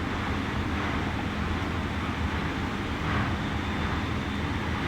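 Steady low hum and rumble of background machinery, with no distinct knock or clank.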